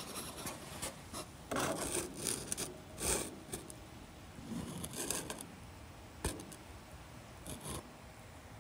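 Scraping and rubbing handling noise in irregular bursts as a camera is worked through an inspection hole inside an aircraft wing, rubbing against the hole's rim and the wing's structure, with a single sharp click a little after six seconds.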